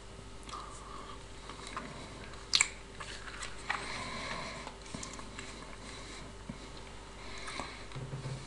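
A person chewing a sour candy, with faint wet mouth sounds and small clicks. One sharper, louder click comes about two and a half seconds in.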